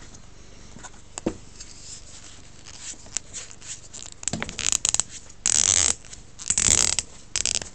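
Close handling of a briar tobacco pipe: a few soft clicks, then several loud scraping bursts of about half a second each as the vulcanite stem is twisted and pulled out of the shank.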